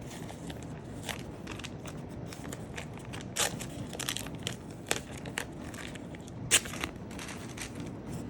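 Masking tape and paper being handled on a journal page: irregular crinkling and crackling, with one sharper click about six and a half seconds in.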